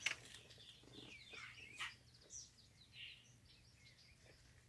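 Faint bird chirps: a scatter of short, high calls over a low, steady background hum.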